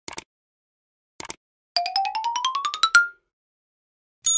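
Subscribe-button animation sound effects: short clicks near the start and about a second in, then a quick run of plinking notes rising in pitch for over a second. Near the end a bell dings and rings on, the sound for the notification bell being pressed.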